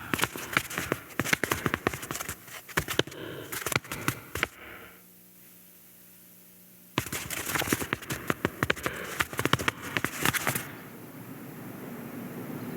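Burning fuse sizzling and crackling with rapid small pops, broken by about two seconds of near silence with a faint hum; the crackling comes back, then settles into a steadier hiss near the end.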